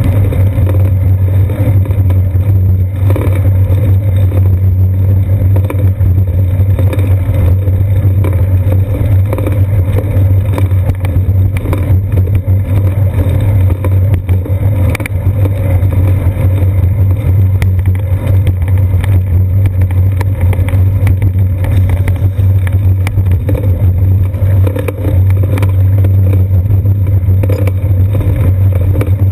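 Loud, steady low rumble from a bicycle in motion, picked up by a seat-post-mounted GoPro Hero 2: wind and road vibration through the camera mount.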